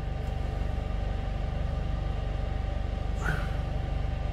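Van engine idling steadily with a fast, even pulse, heard from inside the cab.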